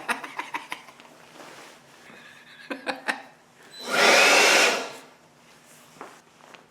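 DeWALT 20V MAX DCE100 compact cordless blower triggered in one short burst of about a second, about four seconds in: a rush of air with a fan whine rising in pitch as it spins up, then dying away. Before it come several small clicks and rattles of the tool being handled.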